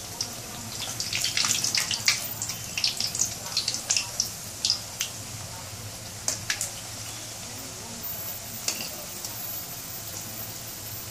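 Rice-flour chekkalu deep-frying in hot oil: a steady sizzle with many crackling pops, dense in the first half and thinning to occasional pops later.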